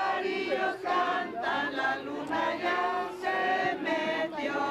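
A group of people singing together in unison, men's and women's voices mixed, in held notes.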